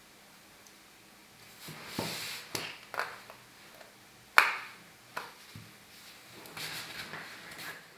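Small plastic and metal clicks and taps with some rubbing as a smartphone and its small parts are handled. A scattered handful of clicks, the sharpest and loudest about four and a half seconds in.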